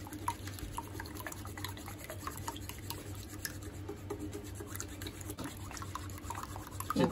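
Chopsticks beating raw eggs in a bowl, cutting through the whites: quick, irregular light clicks and wet stirring.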